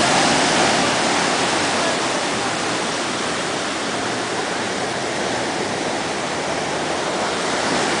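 Rough surf breaking on a sandy beach: a steady rushing wash of waves, a little louder in the first second or so, then even.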